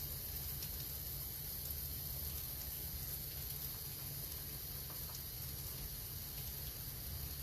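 Steady hiss of a water spray showering great horned owlets to cool them.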